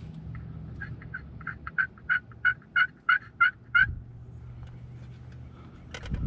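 A wild turkey's series of about a dozen short yelping notes, growing louder and settling to about three a second. A low steady hum runs underneath, and a sharp knock comes near the end.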